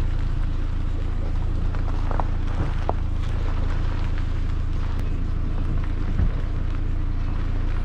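A car driving slowly on a rough gravel road: a steady low drone of engine and tyres, with a few light knocks a couple of seconds in.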